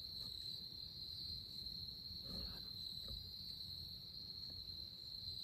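Crickets chirring in one steady, unbroken high trill, over a faint low rumble.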